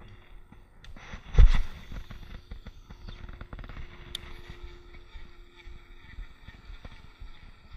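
A single thump about a second and a half in, then a baitcasting reel being cranked to retrieve the lure: a faint steady whir at one pitch with small ticks.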